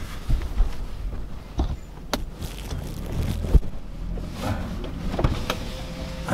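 Inside the cabin of a Honda CR-V driving slowly over a bumpy dirt track: steady low engine and road rumble with scattered knocks and rattles as the car goes over bumps, the loudest a thud about three and a half seconds in.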